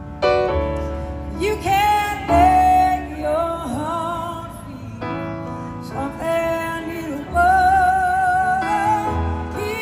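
A woman's lead vocal, held notes with vibrato, over slow keyboard chords and low bass notes: a live soul ballad.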